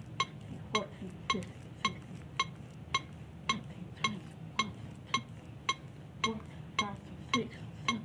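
AED trainer's compression metronome beeping steadily, about two short beeps a second (roughly 110 a minute), marking the rate for chest compressions. Softer low creaks from compressions on a CPR manikin come in under some of the beeps.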